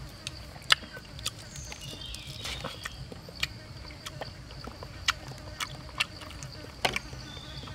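Sharp irregular clicks and snaps of a split wooden stick clamp and crisp grilled chicken skin being worked by hand, over a steady high insect drone.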